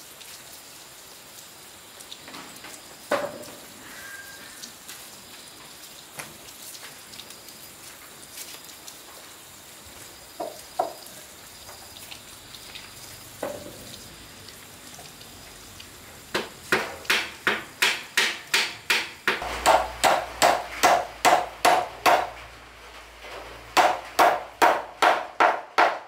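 Hammer blows on wood: a few scattered knocks, then a fast run of strikes at about three a second with a short ringing tone, a brief pause, and a second shorter run near the end.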